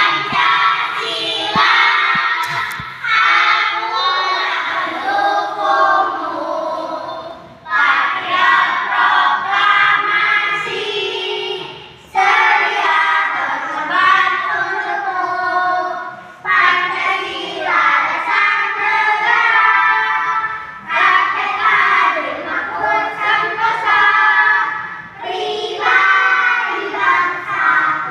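A class of young children singing together in unison, in phrases of a few seconds with brief breaks between them.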